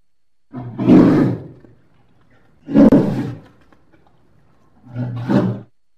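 Three loud calls from a polar bear, each about a second long and about two seconds apart, the last one a little shorter.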